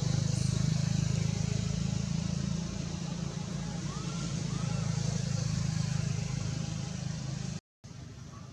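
A motor vehicle engine running steadily close by, a low hum that cuts off abruptly near the end. Two faint short chirps sound about halfway through.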